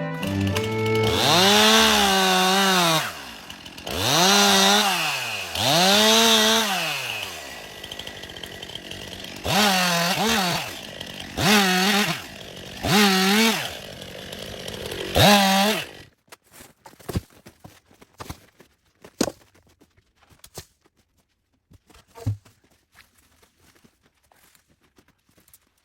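Stihl MS 261 C two-stroke chainsaw revving about seven times, its pitch climbing and falling back with each burst of throttle. After it stops, a stretch of scattered faint clicks and knocks.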